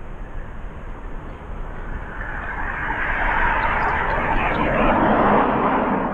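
A passing vehicle's engine noise swells over a few seconds and fades near the end.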